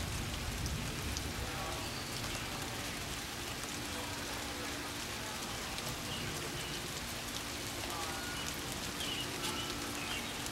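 Steady rain falling during a thunderstorm, an even hiss of rain on surfaces.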